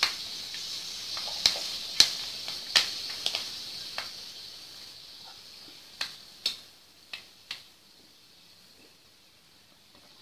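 Fenugreek seeds frying in hot oil in a kadai: a hissing sizzle with sharp pops and crackles as the seeds splutter. The pops are thickest in the first few seconds and thin out after about seven seconds, and the sizzle fades to a faint hiss near the end.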